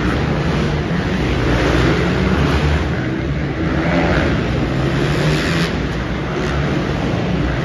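Several 450-class motocross bikes racing together on an indoor dirt track, their engines revving up and down as they brake and accelerate through the turns.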